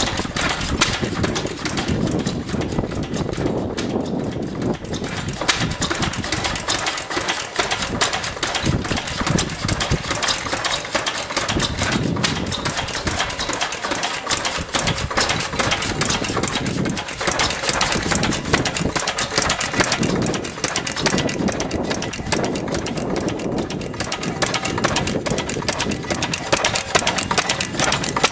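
Vintage Lister stationary engines running, a steady clatter of rapid, even beats from the engines and their valve gear.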